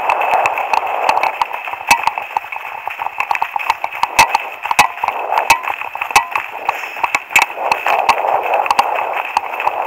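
Running footsteps and trekking-pole tips clicking and crunching irregularly on a gravel track, over a steady rushing hiss, heard through a body-worn action camera.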